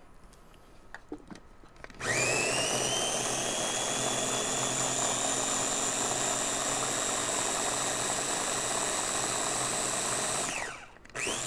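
Small Ninja blender pureeing blueberries: the motor spins up with a rising whine about two seconds in, runs steadily for about eight seconds, then winds down, followed by one short pulse near the end.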